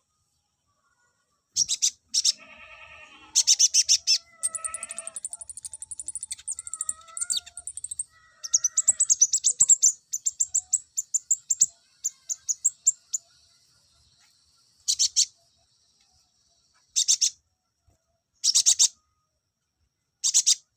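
Male konin songbird singing in its aroused, full-song state: rapid high chirping trills run together for several seconds, with lower whistled notes mixed in early on, then four short separate bursts of chirps near the end.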